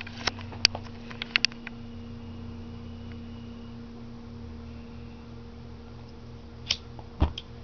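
Steady low hum holding two even tones, with several sharp clicks in the first second and a half and a few more near the end.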